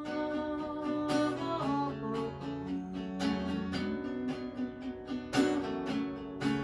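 Acoustic guitar played alone between sung lines: chords strummed at an unhurried, uneven pace, the notes ringing on between strokes.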